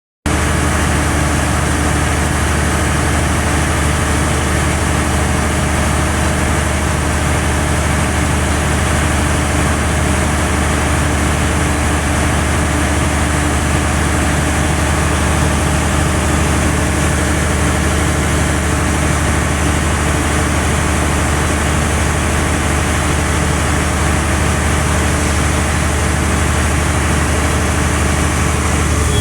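A 2000 kW diesel generator set running steadily at constant speed, with a deep, even hum under a spread of higher engine tones.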